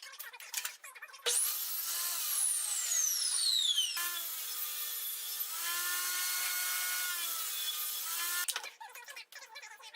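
A power tool cutting walnut, running loud and steady for about seven seconds, with an abrupt change in its sound about four seconds in. Light clicks and handling of the workpiece come before and after.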